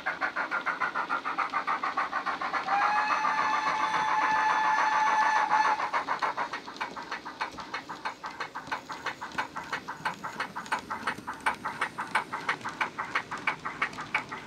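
Sound decoder in a Bachmann OO-gauge GWR 94XX pannier tank model playing steam locomotive sound through its 26x14x7 speaker: a steady beat of exhaust chuffs as the loco runs. A whistle sounds about three seconds in and is held for about three seconds.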